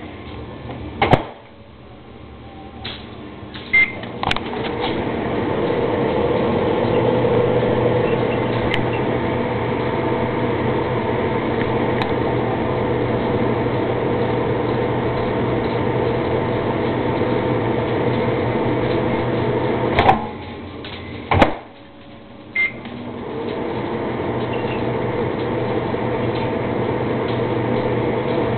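Microwave oven: a few clicks and a keypad beep, then the oven running with its steady hum. About twenty seconds in it stops with a couple of sharp clicks and another beep, then starts humming again.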